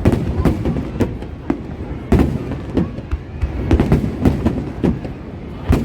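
Fireworks display bursting overhead: about a dozen sharp bangs in irregular quick succession, the loudest about two seconds in and near the end.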